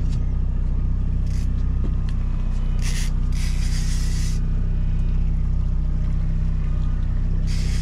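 Fishing boat's engine running steadily at low speed, a constant low hum, with a few short hissing bursts over it around the middle and near the end.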